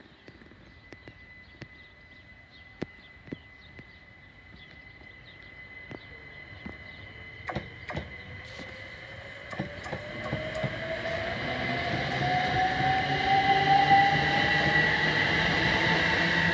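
Great Northern Class 387 Electrostar electric train approaching and running into the platform, growing steadily louder. Its electric traction motors give a whine that rises in pitch over the second half, over the rumble of wheels on rails, with a steady high tone throughout.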